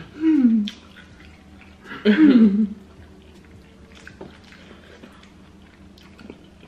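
A person's voice: two short, loud vocal sounds falling in pitch, one right at the start and one about two seconds in, followed by faint small clicks and rustles.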